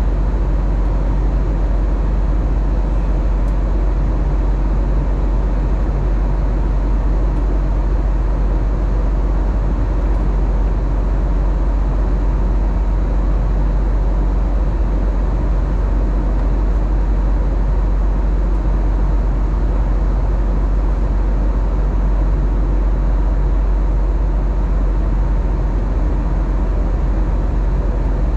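Steady cabin noise inside an Airbus A321neo airliner: a deep, even rumble with a hiss over it that does not change.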